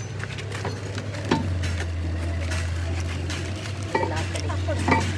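A steady low machine hum that grows louder about a second and a half in, with scattered metallic knocks and clicks over it.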